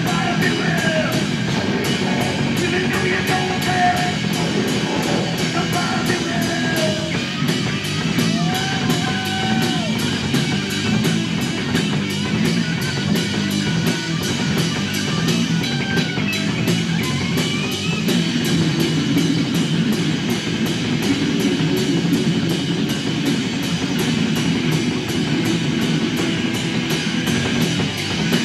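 Live heavy rock band playing: distorted electric guitars and bass over a drum kit keeping a steady beat on the cymbals, recorded loud through a camcorder microphone.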